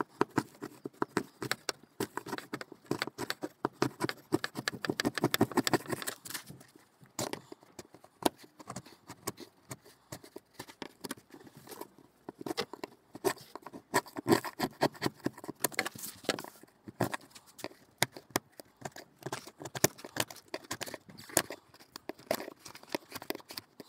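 Fixed-blade knife scraping old black sealant out of a seam, in quick repeated strokes that come in runs with short pauses between.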